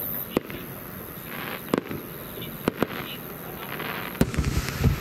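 Japanese warimono aerial firework shells going off: several sharp bangs, two of them close together about halfway through, and a heavier bang near the end followed by a low rolling rumble.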